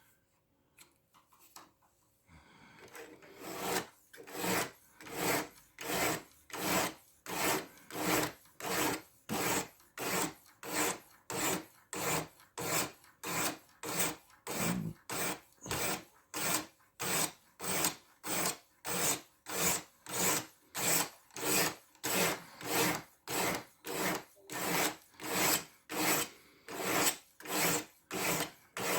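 A 400-grit diamond stone scraping back and forth along the edge of a 14C28N steel knife blade on a guided sharpener, in steady, evenly spaced strokes about one and a half a second, starting a couple of seconds in.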